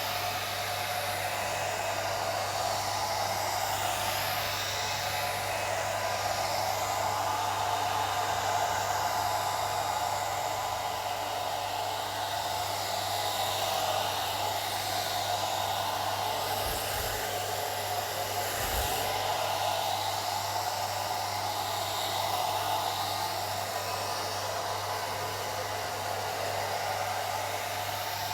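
Old hair dryer running continuously: a steady whooshing of fan and airflow over a low motor hum.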